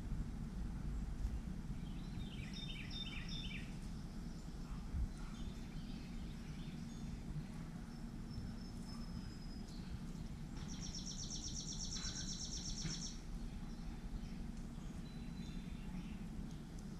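Wild birds calling over a steady low background rumble: a short run of quick falling notes about two seconds in, and a fast, high trill lasting a couple of seconds past the middle.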